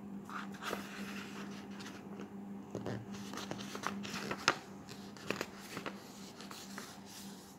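A sheet of colored paper rustling and crackling softly as it is folded and pressed flat by hand, with scattered light crinkles. A faint steady hum lies underneath.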